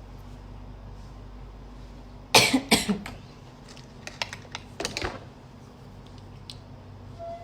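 A person coughs twice, close to the microphone, followed by a few light clicks and taps.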